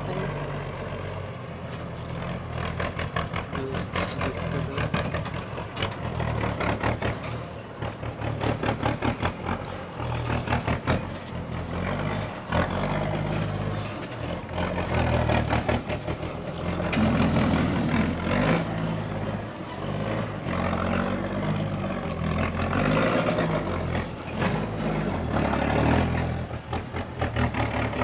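M35A2 6x6 truck's engine labouring under a full load of sugar cane as it crawls over a rocky dirt track, its pitch rising and falling with the throttle. Sharp knocks and clatter come from the body and wheels as it goes over the rocks.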